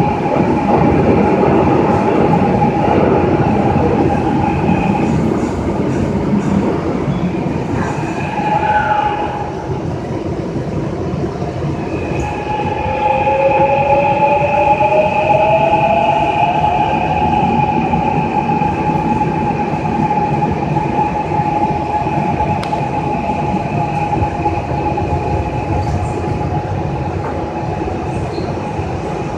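Gwangju Metro Line 1 subway train running, heard from inside the car: a steady rumble of wheels on the track under high, steady whining tones, with one tone gliding up in pitch about halfway through.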